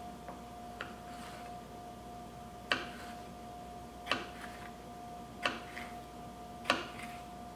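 A thin boning knife slicing bell peppers, its blade clicking down onto a wooden cutting board about every second and a half, six strokes in all, four of them louder. A faint steady hum runs underneath.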